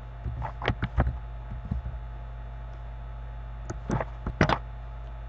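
Computer keyboard keystrokes, scattered and irregular: a few in the first two seconds and another handful about four seconds in. A steady low electrical mains hum runs underneath.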